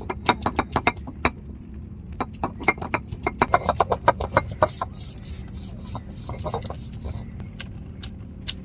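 Stone roller of an ammi grinding stone tapping on the stone slab to crush garlic and ginger, in quick runs of sharp knocks, about five a second, followed by a brief scraping and a few last knocks.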